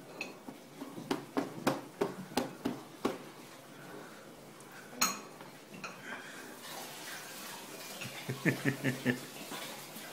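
A baby's hand slapping a plastic high-chair tray: a quick run of sharp slaps in the first three seconds, one more about five seconds in, and another quick run near the end.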